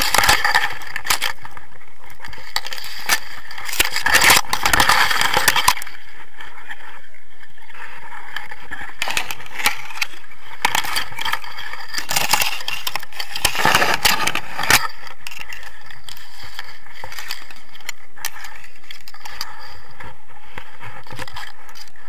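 Tall grass brushing and scraping against an action camera and a paraglider harness in irregular bursts, over a steady background hiss. The loudest bursts come a few seconds in and again past the halfway point.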